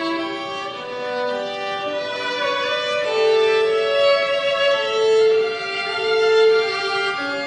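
Slow instrumental music, a violin playing long held notes.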